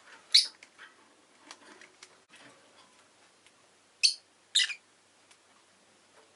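Rosy-faced lovebird giving short, sharp, shrill calls: one just after the start, then two in quick succession about four seconds in, with faint small ticks and rustles between.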